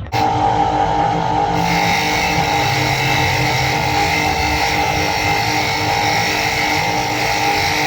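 Toyota Hilux diesel engine running steadily and loudly, with a hiss joining about one and a half seconds in. The engine has a faulty injector nozzle, which the mechanic says makes it misfire.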